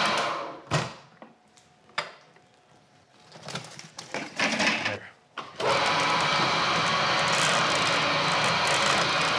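A commercial cutter-mixer chopping cabbage for coleslaw. Its motor runs down just after the start, then come several knocks and clatters as cabbage is loaded into the steel bowl and the lid is closed. About five and a half seconds in, the machine starts again with a loud, steady whir.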